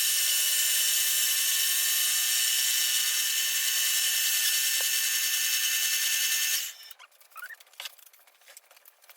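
Milling machine cutting the steel base of an anvil flat: a steady high-pitched whine of the cutter in the metal. It stops suddenly about two-thirds of the way through, and light clicks and handling noises follow.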